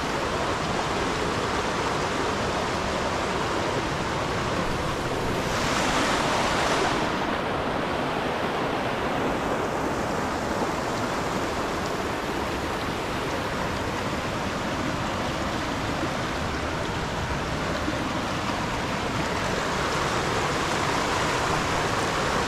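River water rushing steadily over a rocky bed, with a brief louder, hissier surge about six seconds in.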